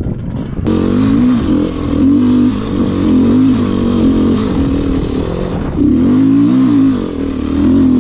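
Dirt bike engine revving hard under load on a steep rocky climb, starting less than a second in, its note rising and falling again and again as the throttle is worked.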